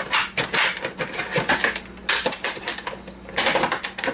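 Clicking and clattering of an old electronic device's casing being handled and pried at, in quick irregular bursts.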